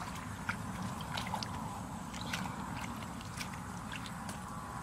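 Hands and bare feet sloshing through shallow, muddy rice-paddy water, short irregular splashes and squelches over a steady low rumble.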